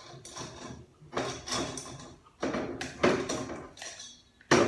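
Metal parts of a ZF 8HP automatic transmission clinking and clattering as they are handled during disassembly: about five sharp knocks with a brief metallic ring, the loudest near the end.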